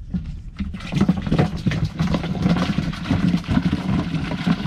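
A dense chorus of pond frogs croaking: many rapid, rattling croaks overlapping into a loud, continuous din that starts about a second in.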